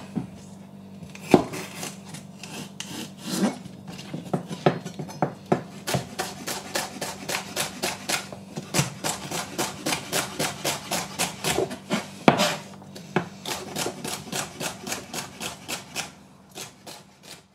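Chef's knife chopping celery on a plastic cutting board: a few separate cuts at first, then a steady run of quick chops, about three a second, from about six seconds in.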